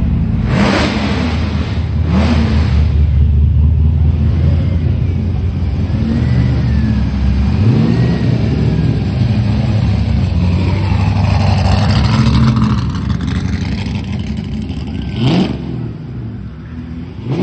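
Modified car engines running with a deep, steady rumble, revved in short throttle blips about five times. The low note changes about eight seconds in as a different engine takes over.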